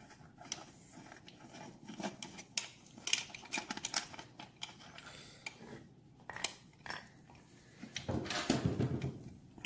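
Hand tools and small metal parts clinking and clicking against a Triumph 650 engine's primary cover as its fasteners are loosened and taken out. There is a louder, busier stretch of rattling near the end.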